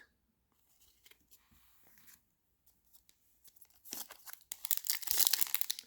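A few faint clicks, then from about four seconds in the crinkling and tearing of a foil trading card pack wrapper being ripped open.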